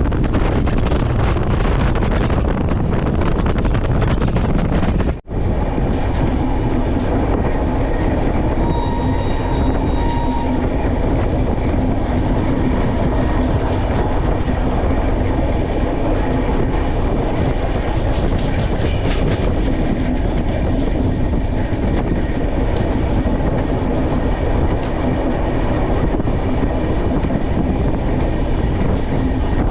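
Passenger train running along the track, heard from on board: a steady, loud rumble of wheels and carriages.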